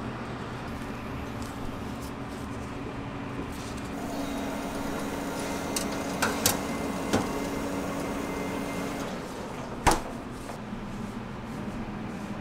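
A metal wire tray of donut dough slid onto the rails of a proofing cabinet, with a few light metal clicks and knocks, then one sharp clack about ten seconds in as the cabinet is shut. A steady machine hum runs underneath.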